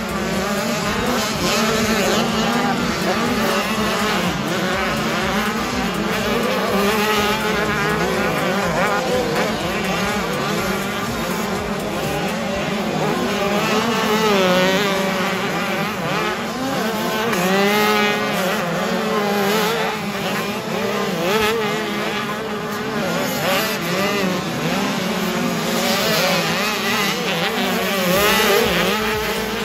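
85cc two-stroke motocross bike engines revving up and down continually, several engine notes overlapping and rising and falling through gear changes and throttle.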